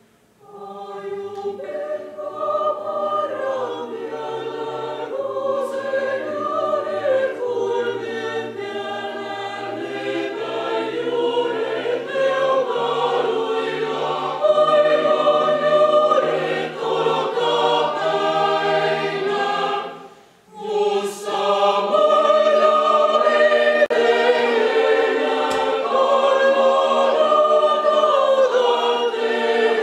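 Mixed choir singing unaccompanied, with a low held drone under the upper voices' melody. The singing drops out briefly about two-thirds of the way through, then comes back louder.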